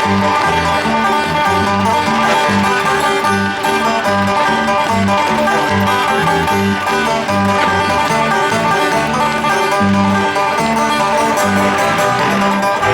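Bluegrass music led by banjo, with guitar and a steady bass line stepping in an even rhythm.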